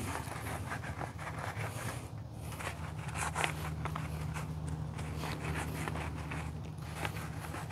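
Soft-bristle wheel brush scrubbing inside a soapy alloy wheel barrel: irregular back-and-forth swishing strokes through the soap. A steady low hum runs underneath.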